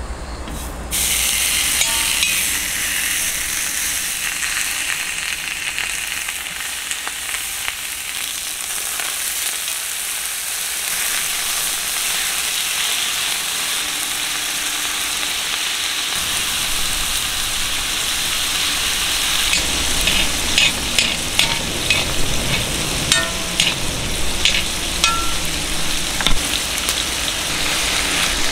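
Food frying on a hot griddle, a steady sizzle, with a spatula tapping and scraping against the pan in the second half.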